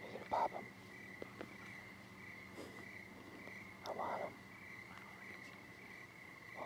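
Quiet woodland ambience: a faint, steady high insect trill, with two brief soft breathy sounds about half a second and four seconds in.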